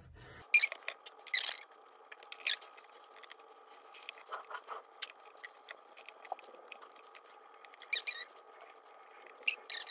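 Photo cards and polaroids being laid out by hand on a table: small taps and slides of card on the surface, with a few sharper clicks of card, over a faint steady hum.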